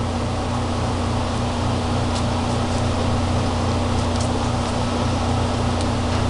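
Steady machine hum: a low drone with a steady mid-pitched tone under an even rushing noise, with a few faint light ticks.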